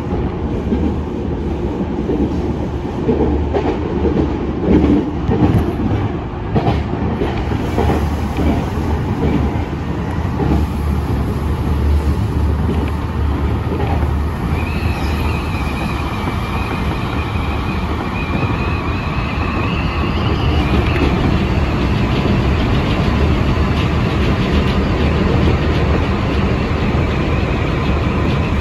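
Senboku Rapid Railway 5000 series electric train running, heard from inside the front cab: a steady rumble with wheels clicking over rail joints, then from about halfway a steady high whine that rises slightly as the train runs into a tunnel, the running noise growing a little louder.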